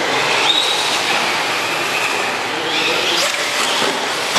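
Traxxas Rally 1/10-scale RC car's electric motor and drivetrain whining, the pitch rising and falling as the throttle is worked.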